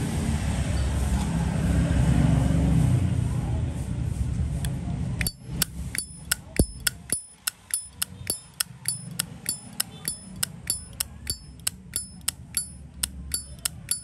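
Zippo lighter lid being flicked open and snapped shut over and over, showing off its sound: a quick run of crisp metallic clicks, about three a second, many with a short bright ring. Before the clicking starts, about five seconds in, there is a steady low rumble.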